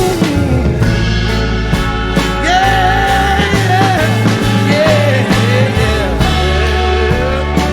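Soul-blues band recording playing: a man's voice sings long, bending notes over bass, drums and guitar.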